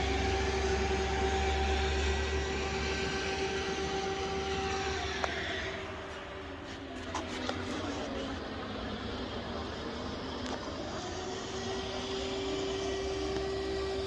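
Air raid siren sounding its warning to take shelter: a steady tone that sinks in pitch about five seconds in, then climbs back to its steady pitch a couple of seconds before the end.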